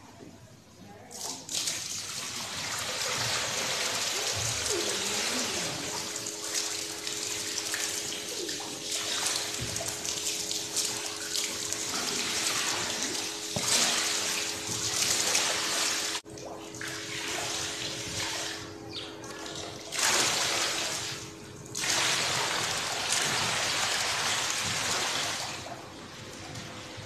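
Water pouring out of a large plastic tub onto concrete as it is tipped to drain it, splashing. The pouring starts about a second and a half in and surges and slackens several times.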